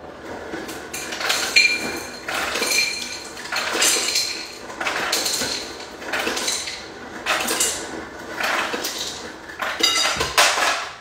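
Ice cubes clattering into a glass bowl in about eight separate bursts roughly a second apart, the glass giving a high ring with some of them.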